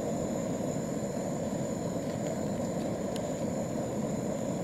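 Portable gas camping stove burner running with a steady low roar under a cooking pot, with one light clink of a metal spoon against the pot about three seconds in.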